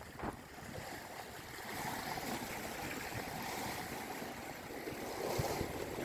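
Strong wind over a choppy lake, with small waves washing against the rocky shore and gusts buffeting the microphone.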